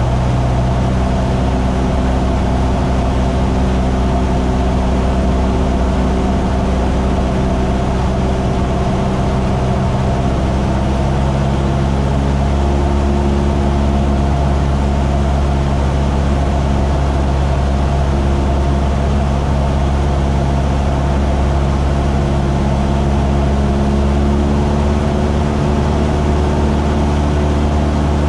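A light aircraft's piston engine and propeller droning steadily, heard inside the cockpit; its pitch shifts slightly a few times.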